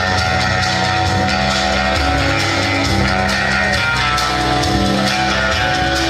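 Rock music with guitar and a steady drum beat, loud and continuous.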